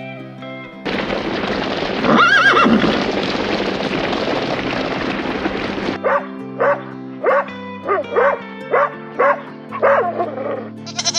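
Small dog yapping: a run of about eight short, sharp barks about half a second apart. Before the barks there is a loud noisy stretch with one arching animal call.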